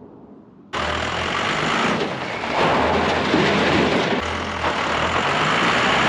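Dodge D250 pickup with its Cummins diesel, driven: a loud, steady rushing noise over a low engine drone, coming in suddenly just under a second in.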